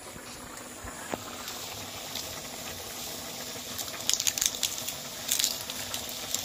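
Food sizzling in a kadai over a wood fire, a steady hiss. From about four seconds in, short crackling bursts as dry bay leaves are torn by hand.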